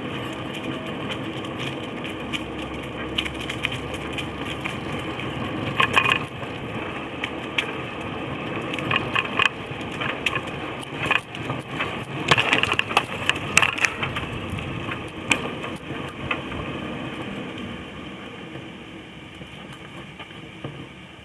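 Cruiser bicycle rolling along a dirt trail strewn with dry leaves: a steady crunch of tyres on grit and leaves, with frequent rattles and knocks of the bike and its camera mount over bumps. It gets quieter near the end, with two sharp knocks.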